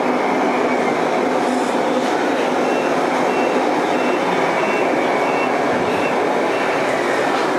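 An RC truck's reversing beeper, starting about three seconds in and giving about seven short high beeps, a little under two a second. Underneath runs a steady, continuous rumble of vehicle noise.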